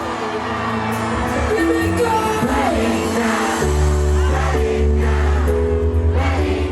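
Background music: a reggae/afrobeat-style pop song with sung vocals over held chords and a steady bass line.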